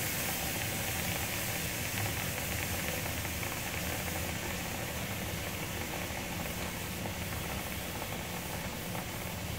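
Hot masala chai sizzling and bubbling as it boils up inside a red-hot clay kulhad: the heat of the pot makes it froth over on its own. A steady hiss that eases slightly toward the end.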